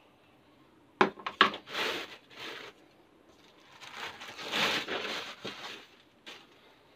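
Plastic packaging being opened: a few sharp clicks from the blue plastic lid about a second in, then clear plastic wrapping crinkling as it is pulled off a cylindrical air-purifier filter and crumpled.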